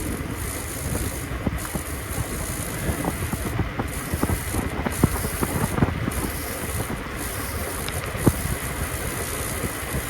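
Wind rushing over the microphone on a bicycle coasting downhill, a steady roar with scattered small rattling clicks.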